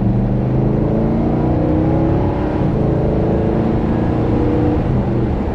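Nissan Titan's 5.6-litre V8 pulling under part throttle, heard from inside the cab, its low engine note rising in pitch as the truck accelerates.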